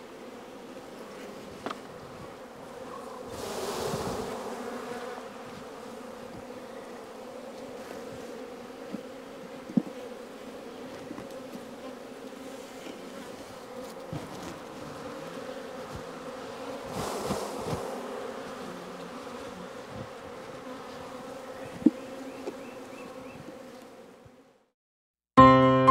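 Swarm of honey bees buzzing around an open hive as the frames are worked and bees are shaken off, a steady low hum that swells louder twice, about four seconds in and again about seventeen seconds in, with a few light clicks. The buzz fades out near the end.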